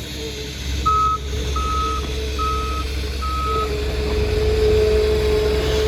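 John Deere 330G skid steer's backup alarm beeping four times as the machine reverses, over its diesel engine running. After the beeps a steady whine grows louder.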